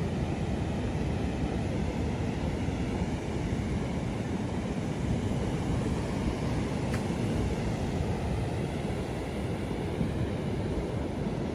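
Steady rumble of ocean surf and wind.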